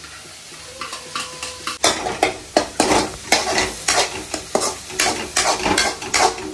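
Onions frying and sizzling in a pan, stirred with a utensil that scrapes the pan in quick strokes, a few a second, starting about two seconds in.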